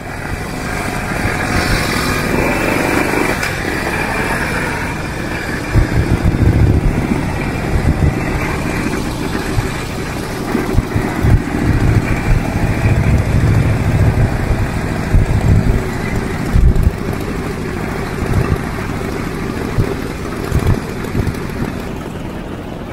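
Harley-Davidson chopper's V-twin engine running as the bike is ridden, with an uneven low exhaust beat that is loudest from about six seconds in.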